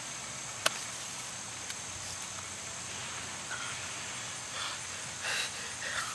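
Steady outdoor ambience with an even, high-pitched insect chorus. A sharp click comes a little under a second in and a fainter one about a second later.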